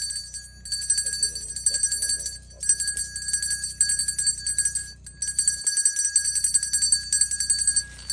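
A small handbell shaken rapidly and without a break, its clapper striking many times a second. It rings in runs of about two seconds, separated by brief pauses.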